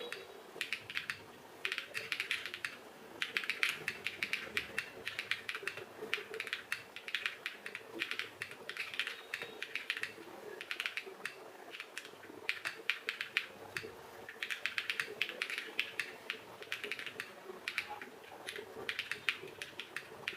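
Typing on a mechanical keyboard built on a Glacier keyboard kit with SOTC switches and PBT keycaps: rapid key clicks and clacks in bursts with short pauses between runs.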